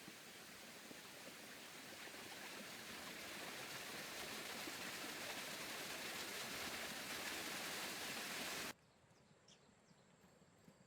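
Steady rushing water noise, slowly growing louder, that cuts off abruptly near the end, leaving a quiet background with a few faint short chirps.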